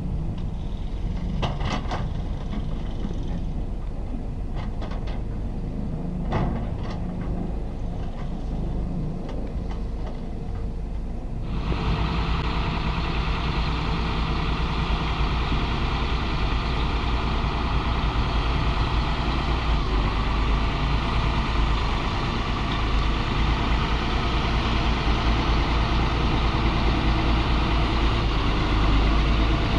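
Diesel engines of heavy earthmoving machines running steadily, with a few sharp clicks or knocks. About twelve seconds in, the sound changes suddenly to a louder, fuller engine noise that carries on steadily.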